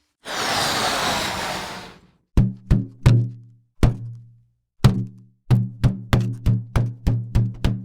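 Cartoon sound effects: a hissing whoosh lasting about two seconds, then a string of knocks, each with a short low ring. The first few knocks are spaced apart, then a quicker run of about four or five a second follows.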